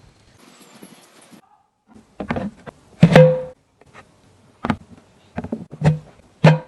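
A series of sharp knocks or taps at uneven intervals, some with a brief ringing tone after them, like parts or tools being struck during workshop assembly.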